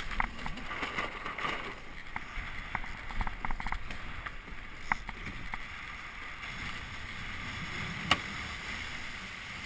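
Water rushing along the hull of a Melges 17 sailing dinghy under way just after a tack, with scattered short clicks and knocks, the sharpest about eight seconds in.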